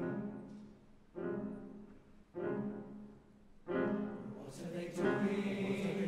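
Male-voice school choir singing: three short chords that each begin sharply and fade, about a second, two and a half and just under four seconds in, then a fuller, sustained chord from about five seconds in.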